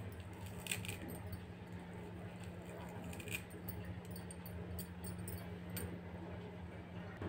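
Fresh coriander being picked over by hand into a steel bowl: faint rustling, with a few light clinks of bangles. Under it runs a steady low hum that stops near the end.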